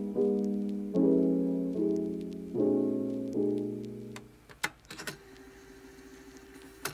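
Background piano music: soft chords struck about every second, fading out about four seconds in. A few faint clicks follow over a low steady hum.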